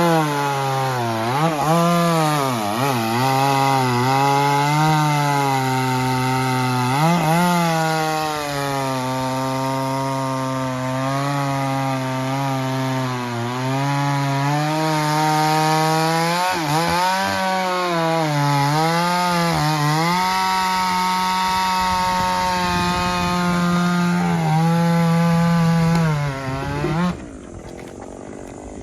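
Chainsaw running at high revs and cutting wood: its pitch sags again and again as the chain bites in, then climbs back. It stops abruptly near the end.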